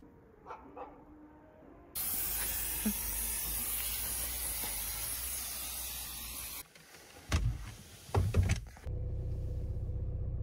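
Aerosol can of tyre-grip spray hissing steadily for about four and a half seconds, starting and stopping abruptly. A few loud bumps follow, then the steady low hum of a car running.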